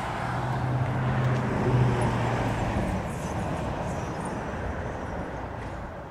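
Ford Focus ST driving past at speed, its engine note loudest about two seconds in and then fading away, over the hiss of street traffic.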